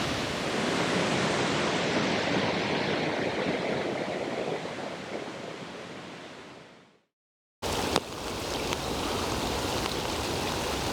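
Steady rushing of a waterfall on a river, fading out to silence about seven seconds in. After a short gap a steady hiss of rain starts with a click.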